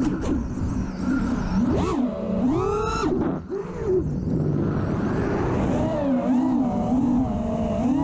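FPV quadcopter's Stout v3 brushless motors and Ethix P3 propellers whining, heard from the camera mounted on the drone. The pitch swoops up and down with each throttle punch and stays wavering in between, climbing again near the end.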